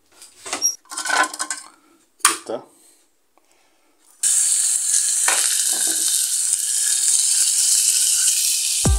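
A few clinks and clatters of tin-can stove parts being handled, then from about four seconds in a steady loud sizzle of meat frying in oil in a pan over a homemade tin-can stove.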